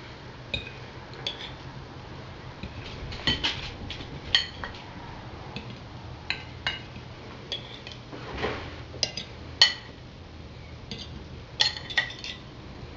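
Metal fork clinking and scraping against a ceramic bowl and plates as salad is served: a dozen or so separate light clinks, a few in quick pairs, with a longer scrape about eight and a half seconds in. A steady low hum from a kitchen vent fan runs underneath.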